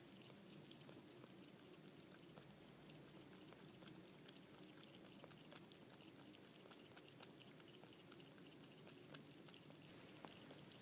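Cat lapping water from a bowl: a faint, fast, irregular run of small wet clicks from the tongue, with a few sharper ones.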